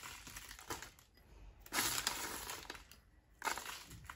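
Crushed pistachios sprinkled by hand, the bits pattering and rustling on baking paper in two short bursts, about two seconds in and again near the end.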